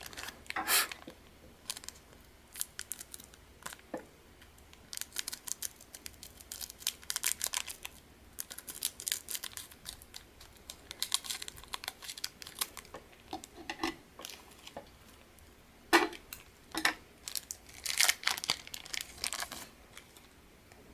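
A foil Pokémon promo pack crinkling in the hands and being cut open with scissors: irregular crackles and snips, with the loudest crinkles near the end.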